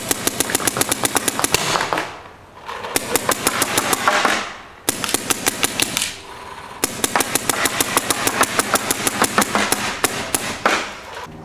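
Electronic Planet Eclipse paintball marker firing in rapid strings of shots, many a second, in three bursts separated by short pauses; the longest burst runs about four seconds near the end.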